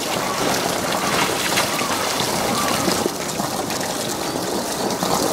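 Water trickling and splashing steadily in a polar bear pool, with many small drips and splashes.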